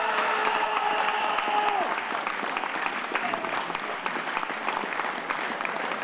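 Crowd applauding in a sports hall after a fencing touch. For about the first two seconds a long held cheer sounds over the clapping, falling in pitch as it ends.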